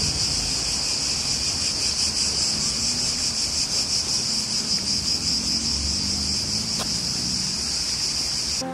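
A dense, steady chorus of singing insects: a high-pitched, unbroken shrill drone.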